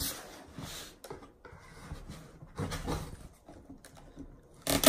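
Cardboard box being opened by hand: flaps pulled and cardboard scraping and rustling in irregular stretches.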